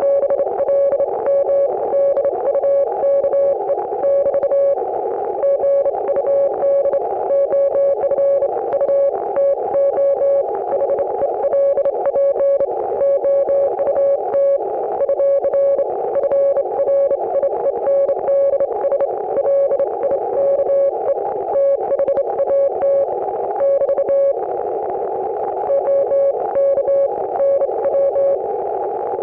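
Morse code (CW) signal heard through an Icom IC-718 ham radio receiver: a single mid-pitched beep keyed on and off in dots and dashes, sending continuously over steady static from the receiver's narrow CW filter.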